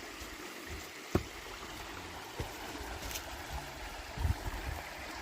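Creek water running steadily, with a few sharp knocks over it, the clearest about a second in.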